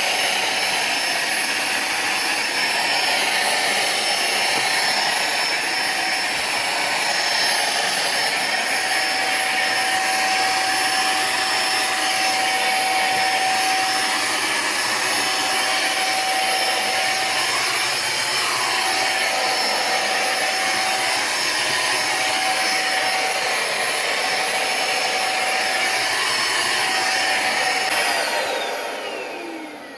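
Mondial Turbo Cycle AP36 1100 W upright vacuum cleaner running with a steady loud rush of air and a high motor whine. Near the end it is switched off and the motor winds down with a falling whine.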